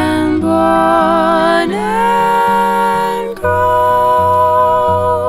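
Background song: a voice holding a few long notes, one sliding up in pitch about two seconds in, over a soft acoustic guitar accompaniment.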